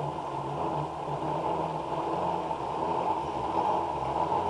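Zipline trolley running along the steel cable: a steady, even hum with no breaks.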